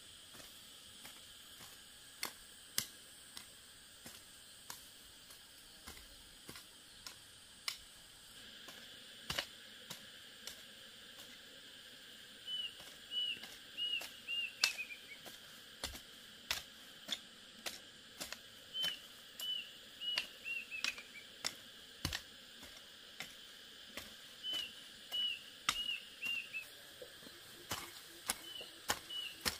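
Irregular sharp clicks and snaps, loudest and most frequent in the second half. From about twelve seconds in, a bird sings a short phrase of quick notes, dropping in pitch at the end, repeated every five or six seconds.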